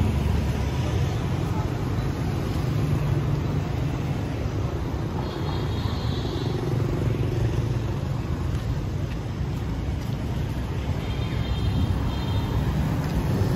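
City street traffic: a steady rumble of passing vehicles, with faint voices in the background.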